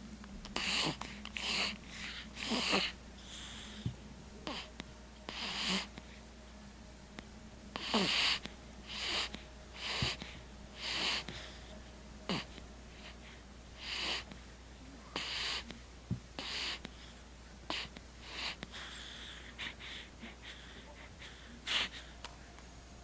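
Newborn baby snoring with a stuffy nose from a cold: irregular snuffly, wheezy breaths, about one or two a second, some with a short whistle or snort.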